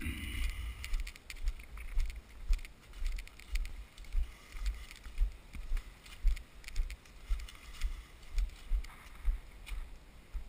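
A hiker's footsteps on a leaf-strewn forest trail, about two steps a second, heard as dull thumps through a GoPro's waterproof housing, with faint light crackles between them.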